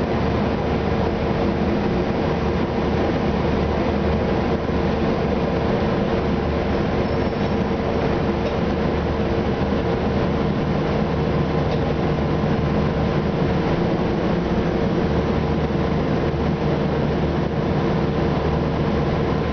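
Steady interior drone of an Orion VII diesel city bus, its Detroit Diesel Series 50 engine with Allison B400R automatic transmission running evenly, with a constant hum and no change in pitch or level.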